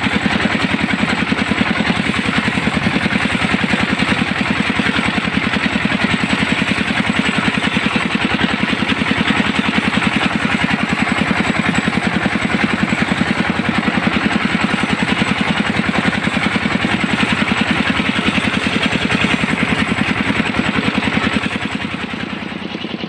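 Engine of a mobile rice-huller vehicle running steadily as it drives, with a fast, even firing beat. It dips slightly in loudness near the end.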